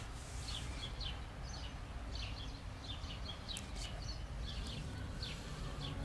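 Small birds chirping: many short, high chirps, each dropping quickly in pitch, scattered irregularly over a steady low rumble of outdoor background noise.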